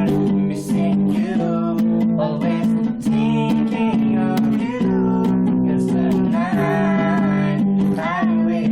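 A song played on acoustic guitar, with strummed chords and a melody line that bends in pitch above them.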